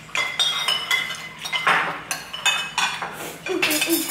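Metal cutlery clinking against bowls and plates as people eat: quick, irregular taps, some leaving a short ringing tone.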